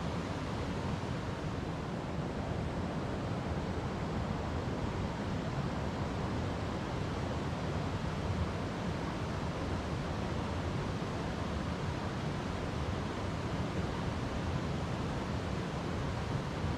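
River water flowing over rocks: a steady, even rushing with no breaks or separate splashes.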